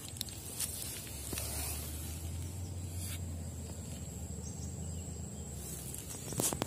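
Footsteps on loose river pebbles and gravel, with scattered crunches and clicks of stones and a quick cluster of sharp clicks near the end, over a steady low rumble and a faint steady high tone.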